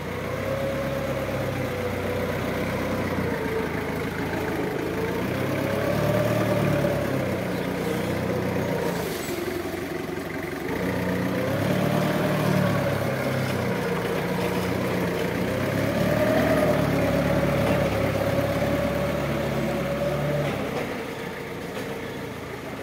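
Linde counterbalance forklift's engine running, its pitch and loudness rising and falling about three times as the truck is driven and its mast worked, with a whine that climbs and drops along with the revs. It eases off near the end.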